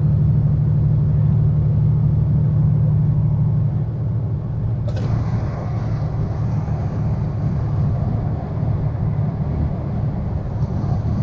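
Semi-truck engine and road noise from inside the cab while driving: a steady low drone that eases off slightly about four seconds in, with a single sharp click about five seconds in.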